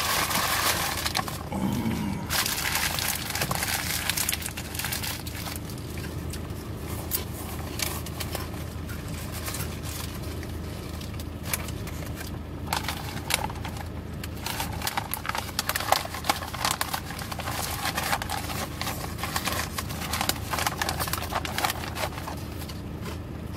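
Crinkling and crackling of a plastic snack bag being handled and opened, irregular throughout, with a person chewing food.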